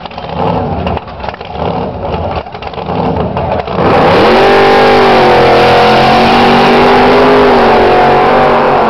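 A car engine rumbling unevenly, then, about four seconds in, revved hard. It is held at high revs, very loud, with its pitch wavering slightly.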